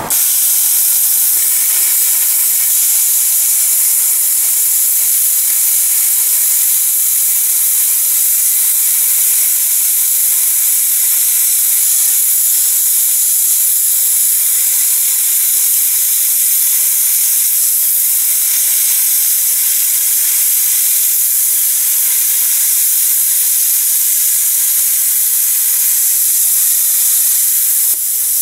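Small 110-volt plasma cutter cutting through a metal plate about an eighth of an inch thick: a loud, steady hiss of the cutting arc and air jet that starts abruptly and breaks up near the end.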